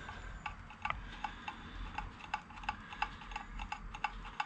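Light, fairly regular clicking of a hand tool, about three or four clicks a second, as the banjo bolt on a motorcycle's clutch slave cylinder is wound out.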